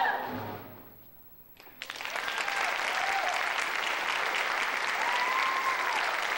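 A musical number's last chord dies away, and after about a second of quiet a live audience breaks into steady applause, with a few voices calling out over it.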